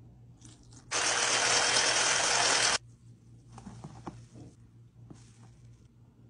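Electric hand mixer's whisk beaters running steadily for about two seconds, with a faint motor whine, starting and stopping abruptly, as milk is beaten into the egg mixture. A few faint knocks follow.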